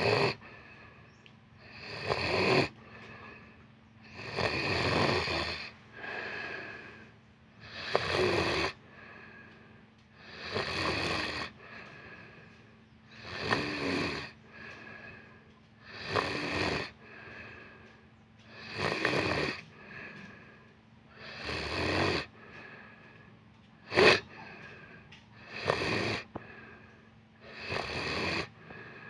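Someone asleep snoring in regular, rasping breaths, about one every two and a half seconds, while sick.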